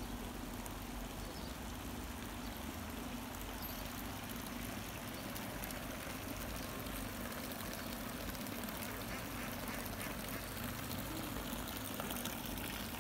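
Mallard ducks quacking over a steady background hiss.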